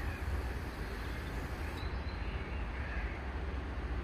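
A crow cawing faintly a few times over a steady low rumble of wind on the microphone.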